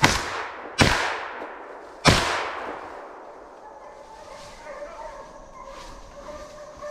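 Three shots from a semi-automatic Pointer Phenoma shotgun, each cracking and echoing through the woods: the second comes under a second after the first and the third about a second later. After the shots, hounds are heard baying faintly.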